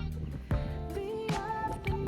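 Background music with a steady drum beat, bass notes and a wavering melody line.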